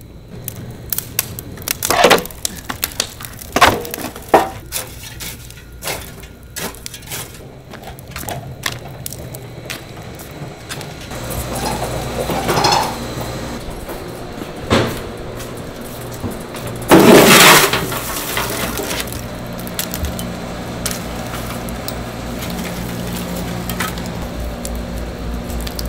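Wood fire crackling, with sharp pops and cracks from planks burning over glowing charcoal in a metal fire box. Later a shovel scrapes and clinks through lit charcoal, with one loud clattering rush about two-thirds of the way in, over a steady low hum.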